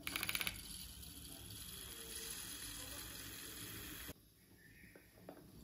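Handheld battery milk frother whisking milky coffee in a ceramic mug. It starts with a brief rapid rattle, then runs as a steady whir and cuts off suddenly about four seconds in.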